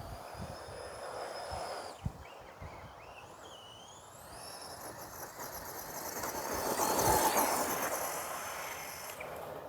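A vehicle passing by: the rush of its noise builds over a few seconds, peaks about seven seconds in, then fades away.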